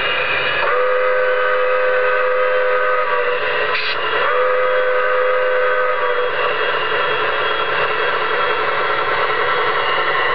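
Sound-system steam whistle of an MTH O-gauge model steam locomotive: two long held blasts with a short pause between them, over a steady hiss.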